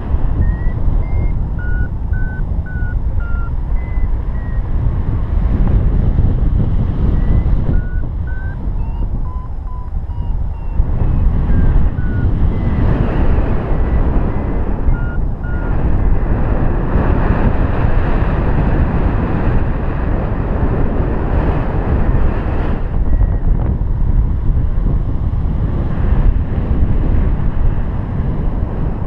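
Paraglider's variometer beeping in short tones that step up and down in pitch, the climb tone that signals rising air, over loud, steady wind rushing across the microphone in flight. The beeps come often in the first half and thin out later.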